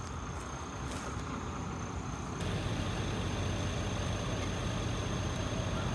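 Heavy truck engine idling with a steady low rumble, getting a little louder about two seconds in. A single footstep is heard about a second in.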